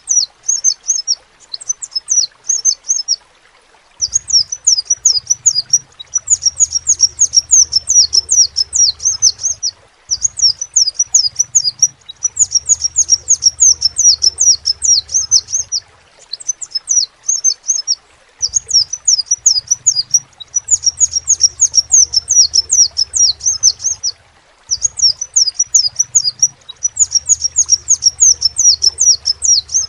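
Crimson sunbird singing: fast, high, sharply sweeping twittering notes in bursts of several seconds, broken by short pauses.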